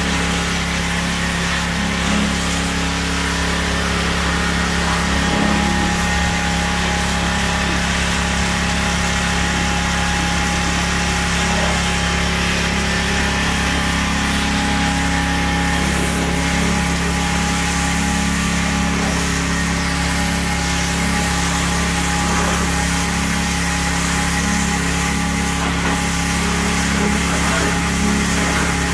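Pressure washer running steadily, its motor holding an even note under the hiss of the high-pressure jet spraying water onto the truck's body and, near the end, a front tyre.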